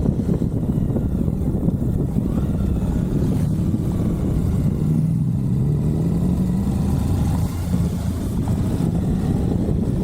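Suzuki V-Strom 1050XT's V-twin engine running under way, heard from on board with wind rushing over the microphone. The engine note rises slightly about halfway through.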